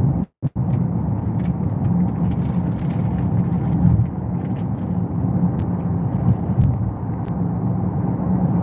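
Steady road and engine noise of a moving car, a low rumble heard from inside the cabin. A brief dropout to near silence comes about half a second in.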